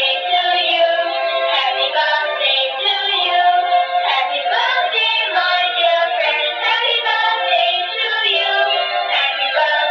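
Dancing cactus toy playing a song with a singing voice through its small built-in speaker, thin and tinny with no bass.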